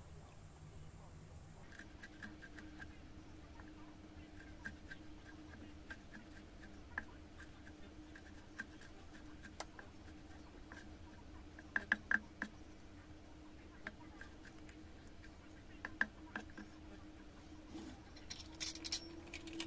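Chinese cleaver chopping dried shrimp on a wooden cutting board: a run of light, quick taps starting about two seconds in, with a few harder knocks about twelve seconds in and near the end, over a faint steady hum.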